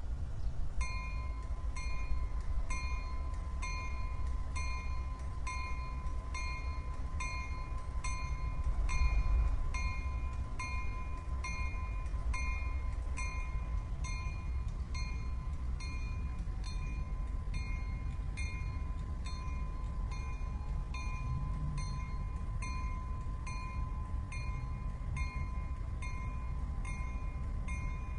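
Diesel locomotive running with a steady low rumble, while a bell rings at an even pace, a little under twice a second, starting about a second in.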